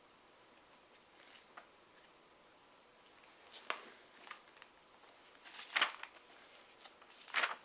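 Nickels being handled: a handful of scattered clicks and short scrapes, with the two loudest in the second half.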